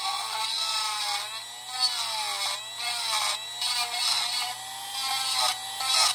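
Dremel rotary tool whining at speed as it grinds the dowel pin off a handlebar switch-housing piece. Its pitch sags and recovers as it bites and eases off, with short bursts of grinding hiss.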